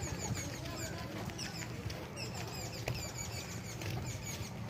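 Many small birds chirping at once: short, high, quick chirps overlapping one another, over a low steady background rumble.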